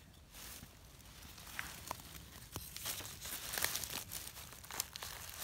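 Dry leaf litter, grass and twigs crackling and rustling as a hand reaches in around a porcini mushroom at ground level. The sound is a faint scatter of small clicks that gets busier after a couple of seconds.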